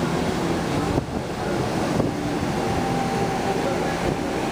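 Steady rushing of the FlowRider surf simulator's pumped sheet of water pouring over its padded slope, mixed with wind on the microphone.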